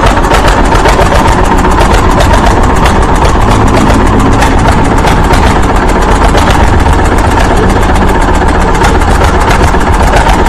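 Handmade miniature diesel engine running steadily with a fast, even beat.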